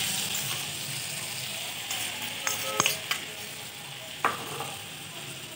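Crushed garlic sizzling in very hot vegetable oil, the sizzle slowly dying down. A few light metallic clinks of a spoon come about halfway through, and one more near the end.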